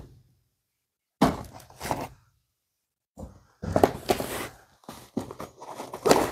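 Cardboard parcel being pulled open by hand: two short bursts of scraping and rustling, then near-continuous rustling of cardboard and paper with sharp knocks and clicks.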